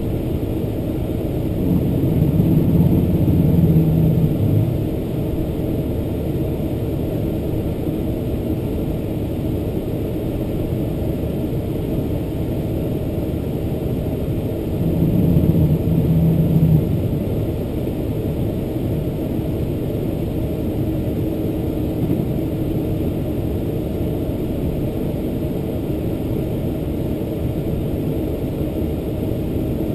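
Inside the cabin of a Boeing 747-400 taxiing, the General Electric CF6 turbofans at taxi thrust and the rolling gear make a steady low rumble. The rumble swells twice, about two seconds in and again around fifteen seconds in.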